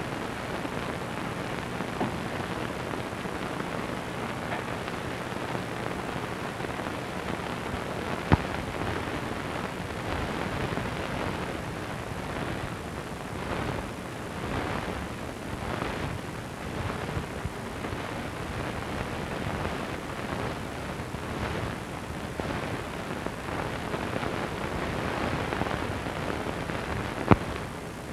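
A steady noisy hiss, with two sharp clicks: one about eight seconds in and one near the end.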